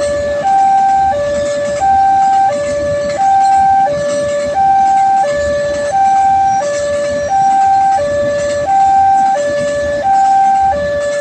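Railway level-crossing warning siren sounding a steady two-tone hi-lo alarm, switching between a higher and a lower note about every two-thirds of a second, the signal that a train is approaching the crossing.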